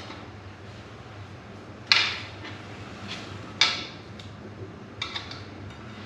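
Metal tire spoons clanking against the wheel rim as a dirt bike tire bead is levered on: two sharp clanks with a short ring, about two and three and a half seconds in, and lighter clicks between them and near the end.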